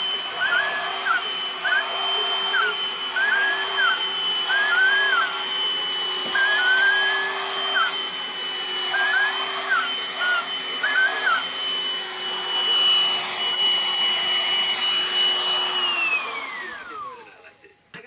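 Vacuum cleaner motor running with a steady high whine, then switched off about sixteen seconds in, its whine falling away as the motor spins down. Short rising-and-falling squeaks come and go over it during the first eleven seconds or so.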